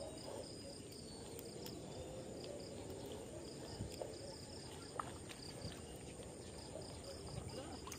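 Faint, even cricket chirping, high-pitched and repeating a few times a second, over quiet outdoor background noise, with a small click about five seconds in.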